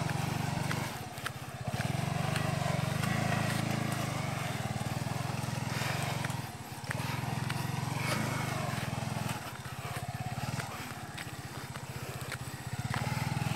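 Small motorcycle engine running at low revs while climbing a rutted, stony dirt track. The engine note drops briefly about a second in, again around six and a half seconds, and for about a second near ten seconds as the throttle is eased.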